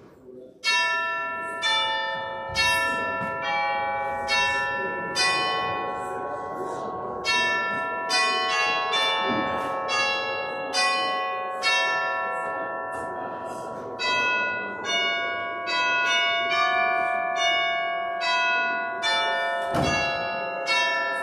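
Church bells ringing a sequence of single struck notes at different pitches, a new note about every second, each one ringing on under the next.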